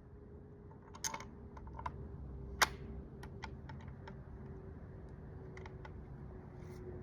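Antique rifle being handled and readied to fire: a string of sharp metallic clicks and light knocks, the loudest a single click about two and a half seconds in, over a faint steady hum.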